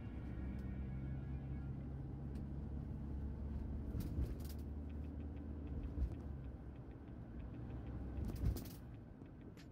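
Engine hum and road rumble inside a moving taxi's cabin, with a few short knocks, the loudest near the end.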